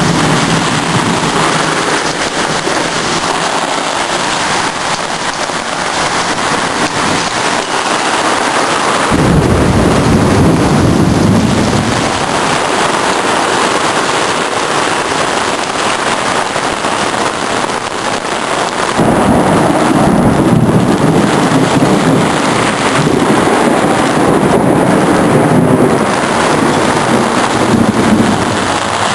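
Heavy rain pouring steadily, with thunder rumbling twice: a short rumble about nine seconds in, and a longer one from about nineteen seconds until near the end.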